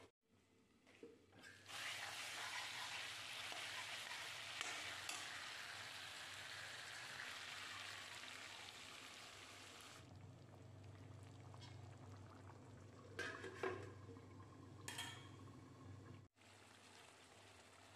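Chicken curry sizzling in a steel kadai as water is poured in from a small steel bowl. After that comes a quieter stretch with a low hum and a few short metal clinks.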